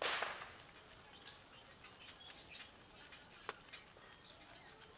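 Wooden spatula working in a clay pot of boiled chickpeas and potatoes: a short scrape at the start, then a single sharp tap on the pot about three and a half seconds in. A faint steady high-pitched tone runs underneath.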